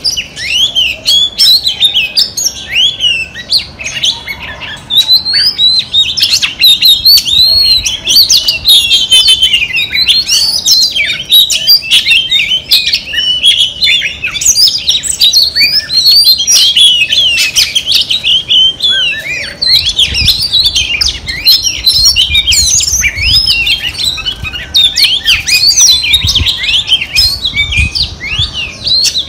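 Female Oriental magpie-robin singing without a break: a rapid, varied stream of whistles, slurs and chirps.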